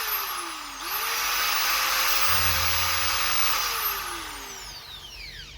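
Corded 220 V Makita electric drill run unloaded as a test: its motor whine winds down briefly, revs back up to full speed about a second in, holds steady, then spins down as the trigger is released near the end.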